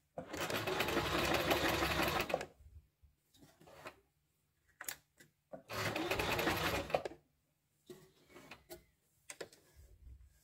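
Privileg Nova sewing machine running in two short bursts, about two seconds and then a second and a half, stitching the widest zigzag on cotton fabric. A few faint clicks and taps come between and after the runs.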